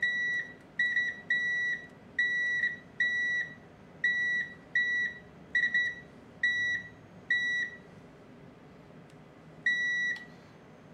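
Digital multimeter's continuity beeper sounding one steady high tone in about a dozen on-off beeps of uneven length, some stuttering, as the probe is touched to the wire ends of a Rodin coil; each beep means a conductive connection. After a pause of nearly two seconds, one more beep comes near the end.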